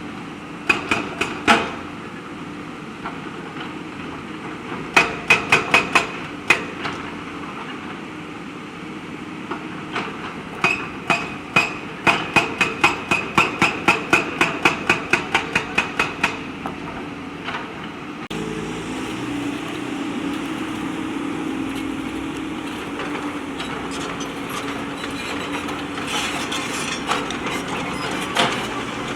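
Backhoe loader working over steady machine noise: groups of sharp metallic clanks, with a run of about three to four knocks a second in the middle. In the last third the engine runs steadily louder.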